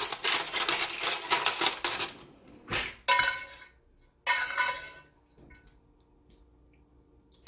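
Metal spoon scraping and clinking against a stainless steel sauté pan while scooping out sauce. The scraping is steady for the first couple of seconds, followed by two ringing clinks about three and four seconds in.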